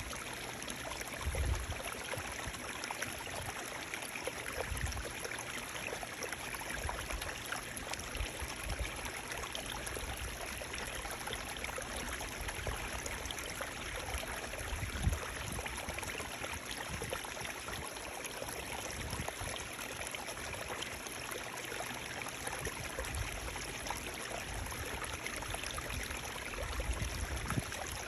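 Running water rushing steadily, like a stream, with a few brief low rumbles.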